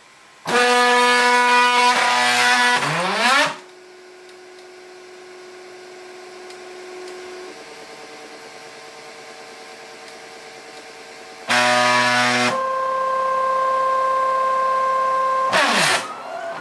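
Overlord Pro delta 3D printer's stepper motors whining with loud steady pitched tones as the carriages move, the pitch sliding as each move ends, with a quieter steady hum between moves. The loud motor whine is the noise problem of this printer.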